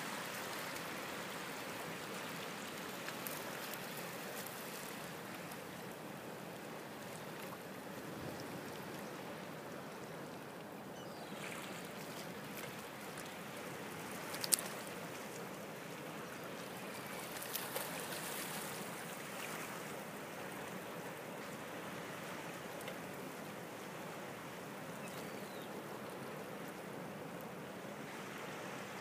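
Gentle water lapping against a rocky shoreline, a steady wash, with one sharp click about halfway through and a few fainter ticks a few seconds later.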